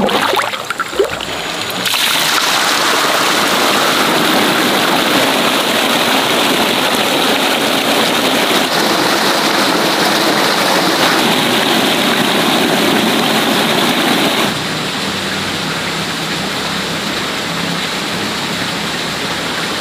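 Water rushing steadily through a pond's drain pipe and out along a shallow outflow channel as the pond is drained. Splashing in the first two seconds gives way to a louder steady rush, which drops to a softer flow about two-thirds of the way through.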